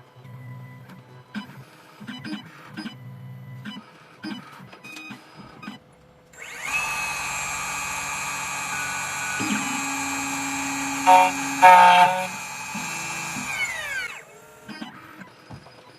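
CNC key cutting machine: its carriage first steps into position in short jerky moves. Then, about six seconds in, the cutter spindle spins up to a steady whine and grinds into the HON66 key blade, loudest a little past the middle, making a single-depth cut on the key's second side. It winds down with a falling whine near the end.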